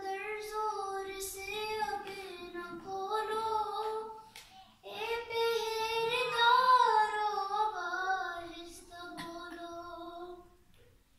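A woman chanting an Urdu salam, a devotional elegy, solo and unaccompanied. It comes in two long melodic phrases with a short breath between them about halfway through, and the voice fades out near the end.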